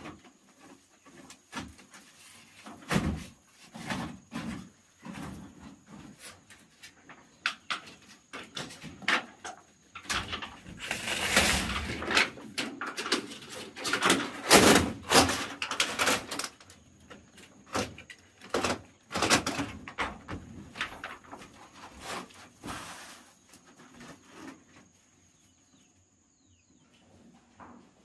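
Hand building work: irregular knocks, bangs and clatter, denser and louder for a few seconds around the middle.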